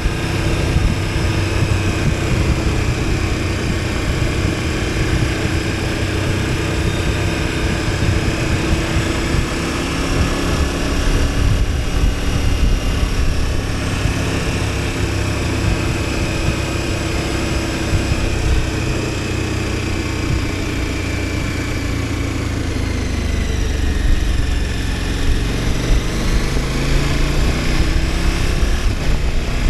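KTM 1290 Super Adventure S's V-twin engine running under way at steady revs through most of the stretch. Near the end the revs fall off, then climb again.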